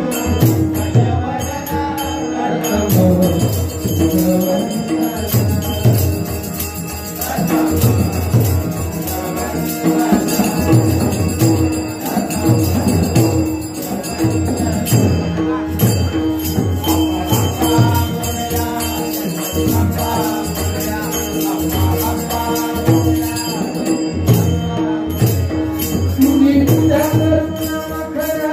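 Konkani-Marathi dabalbari bhajan: voices singing a devotional melody over a held harmonium note, with regular pakhawaj drum strokes and jingling hand cymbals keeping the beat.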